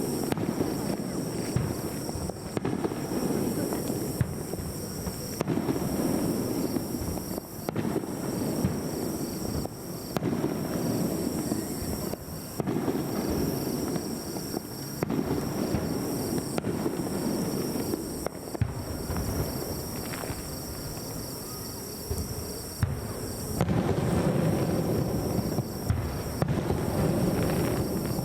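Aerial fireworks bursting continuously: a steady run of crackling and booming, with sharp louder bangs every few seconds.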